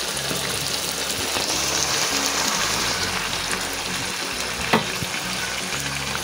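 Mutton curry frying and sizzling in oil in a kadai as hot water is ladled into it, the hiss strongest in the first half. A single sharp metal clink of the ladle or spatula a little after four and a half seconds in.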